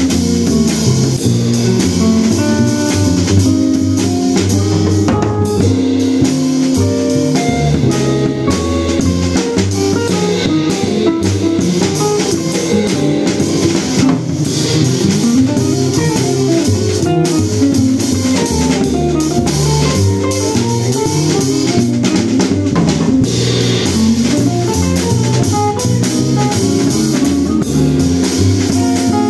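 Live hard-bop jazz: a guitar solo in quick single-note lines over double bass and a drum kit, with the trumpet and tenor saxophone resting.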